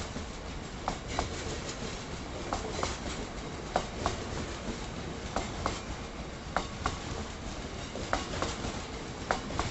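A freight train of Drax biomass hopper wagons rolling past on the rails: a steady rumble with a double clack of wheels over a rail joint about every second and a half.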